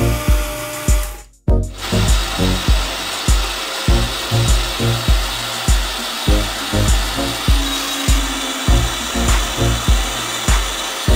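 Background music with a steady low beat, about two thumps a second, over sustained tones; it cuts out briefly about a second and a half in, then carries on.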